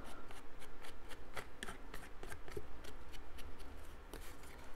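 Small ink pad rubbed and dabbed along the edges of white cardstock pieces to shade them: quick repeated scuffing strokes, about four or five a second, with the paper rustling as it is turned in the hand.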